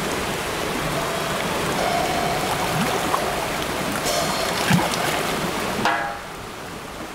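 Creek water running: a steady, dense rush of water noise, which drops away about six seconds in.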